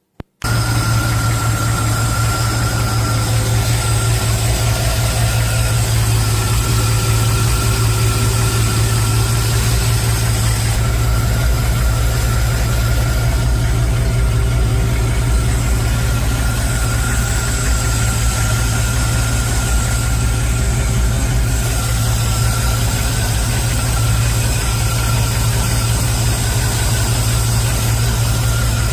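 Chevrolet C20 truck engine idling steadily, starting abruptly just after the beginning, with a low, even firing pulse; it is running normally after the remote starter solenoid fix, with no starter run-on.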